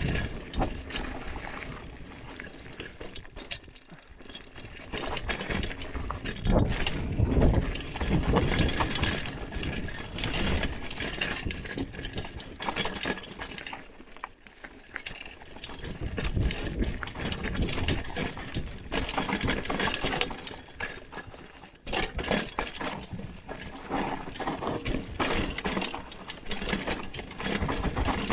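Hardtail mountain bike rattling and clattering down a rough, rocky dirt trail: a continuous run of knocks and rattles from the bike over the ground, rising and falling in loudness as the terrain changes.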